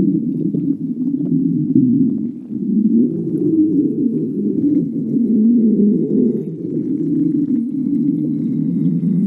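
A person's stomach growling: one long, unbroken low rumble that wavers up and down in pitch.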